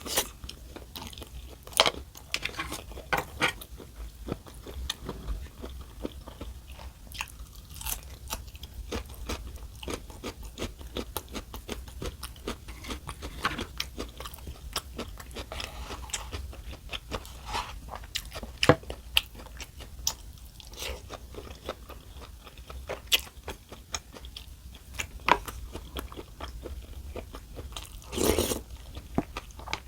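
Close-miked eating: a person biting and chewing food, with many irregular crunchy clicks and a louder burst near the end.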